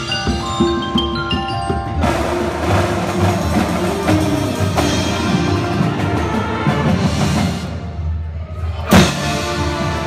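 Marching band front ensemble playing: marimbas and vibraphones carry a ringing melodic line, and about two seconds in more instruments join for a fuller, denser sound. It eases off briefly before a loud accented hit near the end.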